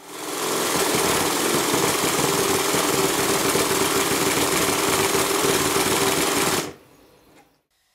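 Stuart triple expansion model steam engine running fast: a loud, steady hiss of exhaust with rapid regular beats, which stops abruptly near the end as the engine is shut off.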